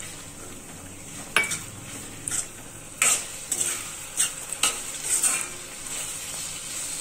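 A metal spatula scraping and knocking against an iron kadhai, about seven strokes between one and five and a half seconds in, as chopped tomato, capsicum and onion are stirred. Under it the vegetables sizzle steadily in hot oil.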